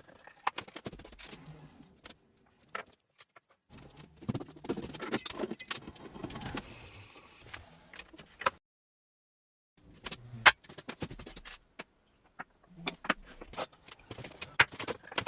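Scattered clicks, knocks and scraping of tools and wood being handled, in short takes broken twice by dead silence.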